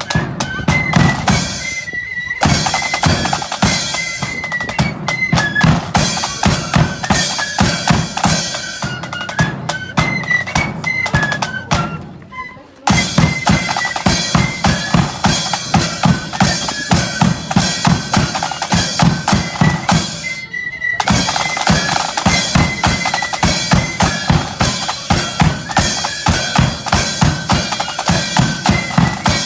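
A marching flute band playing a tune: a line of snare drums with rapid strokes and rolls, a bass drum and cymbals under the flutes' high melody. The music drops away for a moment about twelve seconds in, then starts again at full strength.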